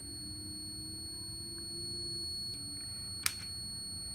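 Digital multimeter in continuity (buzzer) mode giving a steady high-pitched beep with its probes across a dryer thermostat: the thermostat has continuity and is good. A sharp click about three seconds in.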